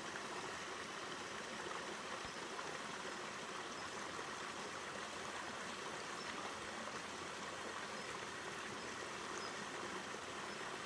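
Mountain stream water pouring over a small two-tier waterfall, a steady, unbroken rush.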